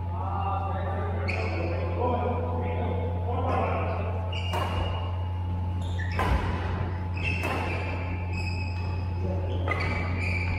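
Badminton rackets striking a shuttlecock in a rally, as sharp hits about every one to two seconds that echo in a large hall.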